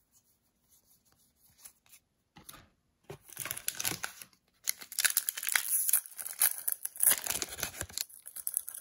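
A foil Sorcery: Contested Realm booster pack wrapper being torn open and crinkled in the hands, a dense crackling that starts about three seconds in after a nearly quiet start.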